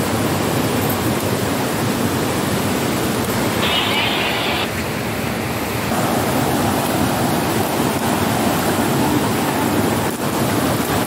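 Steady rushing of a rocky mountain stream, with a brief higher hiss about four seconds in and a fuller rush after about six seconds.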